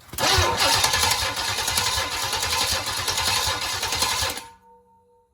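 Chevy 454 big-block V8 being cranked over by its starter for about four and a half seconds, an even rhythmic churning that stops suddenly, during a compression test of a cylinder that was weak on compression.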